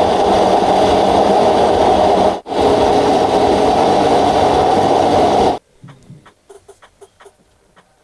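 A loud, steady mechanical whirring noise that drops out for an instant about two and a half seconds in, then stops abruptly about five and a half seconds in; faint light clicks and taps follow.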